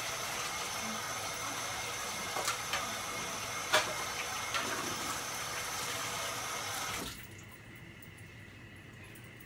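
Kitchen faucet running steadily into a stainless steel sink, with a few short knocks and clinks of items being handled in the basin. The water shuts off about seven seconds in, leaving only quiet room sound.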